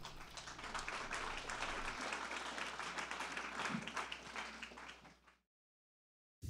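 Audience applauding, a dense patter of many hands clapping, which fades and cuts off about five seconds in.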